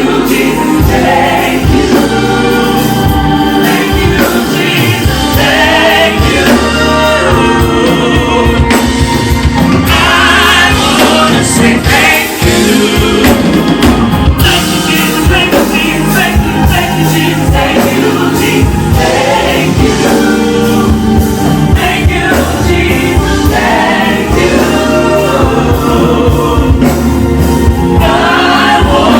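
Gospel choir singing with instrumental backing: several voices over a steady bass line and a regular percussive beat.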